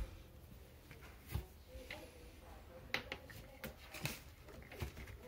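Mostly quiet room with faint, scattered small taps and rustles.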